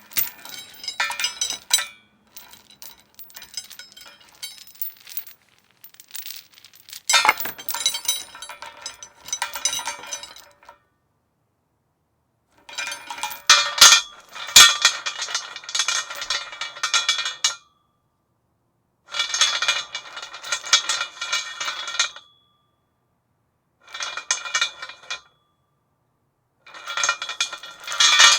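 Metal chain rattling and clinking against a metal post in a series of separate bursts, each a few seconds of dense jangling, with short silences between them.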